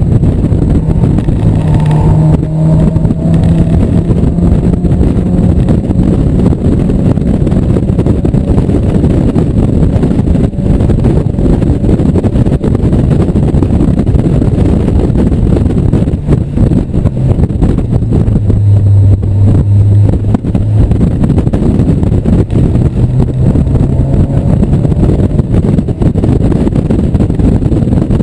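1997 Mazda Miata's 1.8-litre four-cylinder engine running hard on a race track, with tyre and wind noise from the open cockpit. The engine note drops for a few seconds past the middle, then climbs again near the end.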